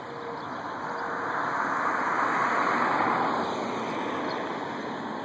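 A road vehicle passing by: a rush of tyre and engine noise that swells to its loudest about halfway through and then fades away.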